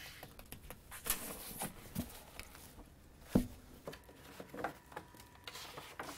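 Pages of an old printed book being handled: paper rustling and a hand brushing over the pages, with scattered small taps and one sharper knock a little past the middle.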